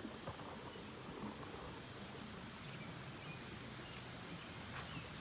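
Creek water running steadily, with a short hiss about four seconds in.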